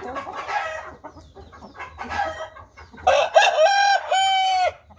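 Chickens clucking, then about three seconds in a rooster crows once: a short broken start followed by a long held note that cuts off near the end.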